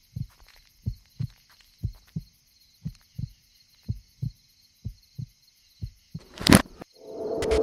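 Heartbeat on a soundtrack: paired low lub-dub thumps about once a second. About six and a half seconds in comes one loud, sharp hit, the loudest sound here. Just after it a hissing, humming drone swells up.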